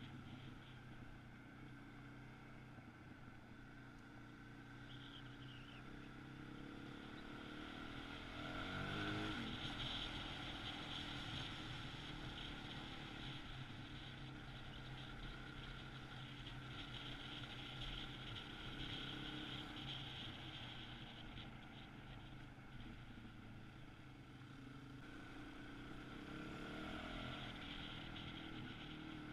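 Dual-sport motorcycle engine running steadily under way on a dirt road, with wind and road noise on an onboard microphone; the revs rise and fall about nine seconds in and again near the end.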